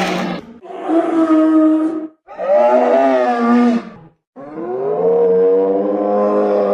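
Stegosaurus creature sound effect: three drawn-out, pitched calls, the middle one wavering in pitch and the last the longest, following the tail end of a harsher, noisy call at the very start.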